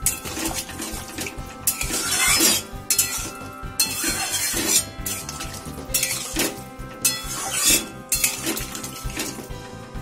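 A metal spatula scraping and stirring against a cooking pan in repeated strokes, several times over, through potato and pointed gourd curry that has just had water added.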